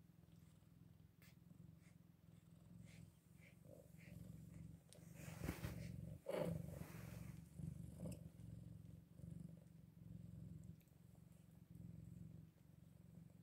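Mother cat purring steadily as she nurses her kittens, a low, faint purr. A few rustling and handling noises come around the middle.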